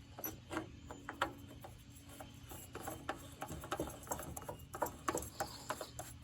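Irregular light clicks and scrapes of a new spin-on oil filter being turned onto its threaded mount by hand, over a faint steady low hum.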